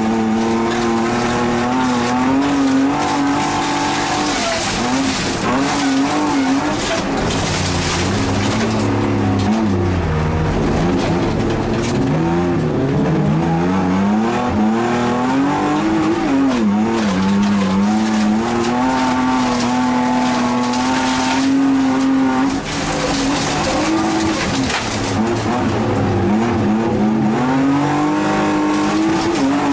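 Race car's engine heard from inside its cabin, revving up and down as it is driven hard round a dirt track, holding steady revs for a few seconds past the middle. Tyre and gravel noise runs underneath.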